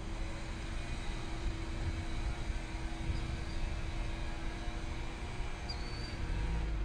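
Steady low rumble of distant vehicles, with a constant hum and wind buffeting the microphone.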